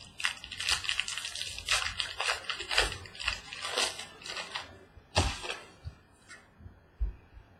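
Crinkling and rustling of packaging as a box of baseball trading cards is opened and handled by hand, with a couple of dull knocks about five and seven seconds in.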